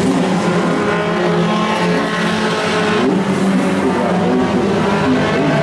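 Engines of a pack of Pro 4 race trucks running at racing speed on an oval track, several engine notes rising and falling together as the trucks lift and accelerate through the corners.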